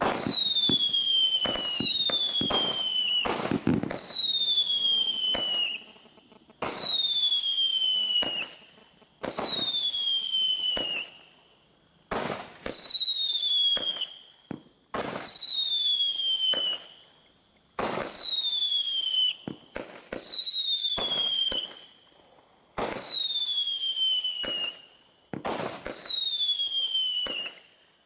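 Bright Star Battle Tank barrage pack firing a run of about ten shots, one every two to three seconds. Each shot is a whistle that falls in pitch over a second or two, with sharp bangs as it bursts.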